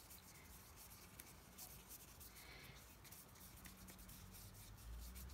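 Faint rubbing of a watercolour brush sweeping paint back and forth across paper.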